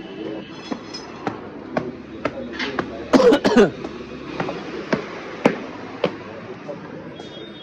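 Footsteps climbing concrete stairs, about two steps a second, with a short vocal sound about three seconds in.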